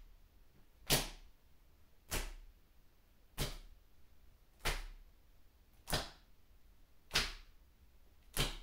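Palms slapping the bare skin of the shoulder blades as the arms swing crosswise around the body: seven sharp slaps, evenly paced at about one every second and a quarter.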